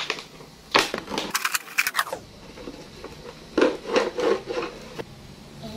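A knife cutting through a thin plastic drink bottle, in two bunches of short sharp strokes, about a second in and again about four seconds in.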